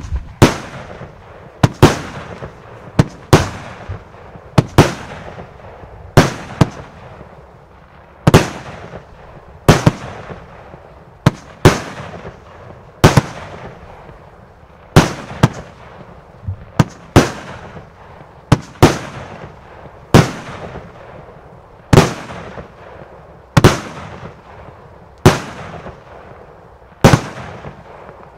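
Heron PSP 1-18 firework firing shot after shot, a sharp bang roughly every one and a half to two seconds. Each bang trails off in a fading hiss.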